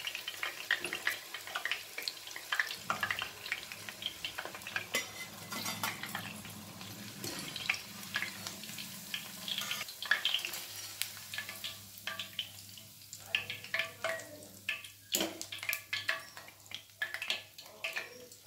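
Cauliflower florets deep-frying in hot oil in a stainless steel pan, a low sizzle, while a wire skimmer scrapes and clinks against the pan with many short taps as the fried pieces are scooped out. Near the end the pieces are tipped onto a steel plate.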